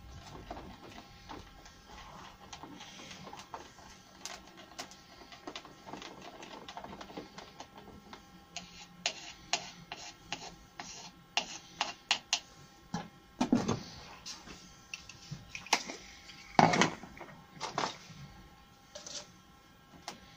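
A wooden stir stick clicking and scraping against a plastic cup as thinned paint is mixed, in quick irregular taps, with two louder knocks in the second half.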